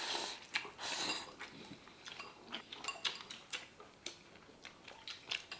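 Chopsticks and tableware clicking and tapping lightly against bowls and the hotpot as people eat, a string of small irregular clicks.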